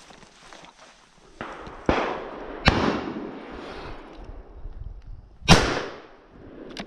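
Shotgun shots from an IZh-27 over-under fired up into the trees at wood pigeons: a smaller sharp crack about two seconds in, a loud shot just after it, and the loudest shot near the end, each trailing off in an echo through the woods.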